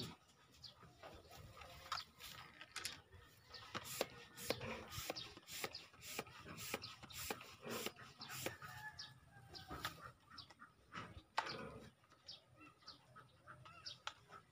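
Chickens clucking, with a run of short clicks and knocks.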